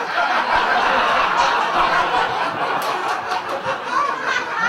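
Comedy-club audience laughing at a joke.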